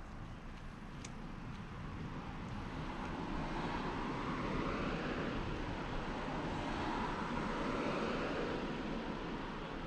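A distant vehicle passing: a broad engine-and-rush noise builds over a few seconds, holds, then eases slightly near the end.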